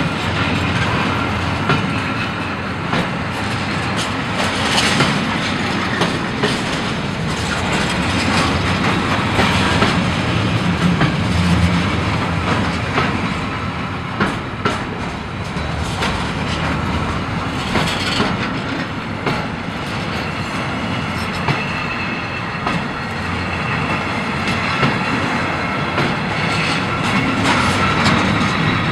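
Freight train rolling past, its wheels clicking over rail joints and points in an uneven clatter over a steady rumble.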